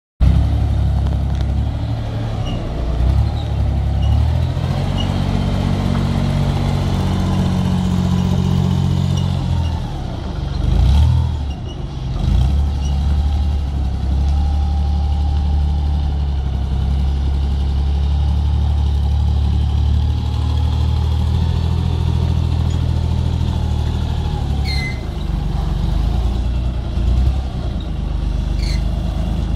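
Forklift engine running close by, its speed rising and falling several times as the forklift drives and manoeuvres under load, with two short sharp clicks near the end.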